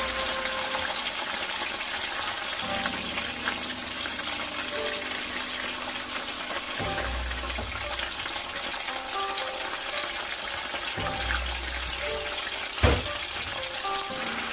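Food frying in hot oil: a steady sizzle with fine crackle, under background music, and one sharp knock near the end.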